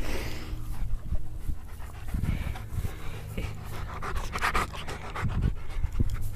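A dog panting hard close to the microphone, worn out and hot from running. About four seconds in there is a louder patch of rustling as its fur brushes the camera.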